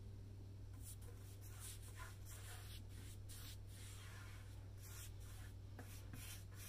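Paintbrush strokes spreading wet liquid wood coating over a painted wooden tabletop: faint, repeated swishes one after another, over a steady low hum.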